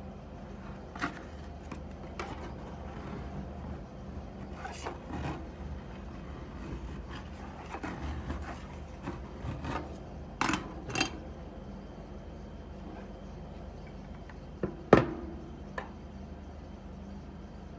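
Metal spatulas scraping and rolling frozen ice cream off a metal pan, with scattered sharp clicks of metal on metal and one loud knock about fifteen seconds in, over a faint steady low hum.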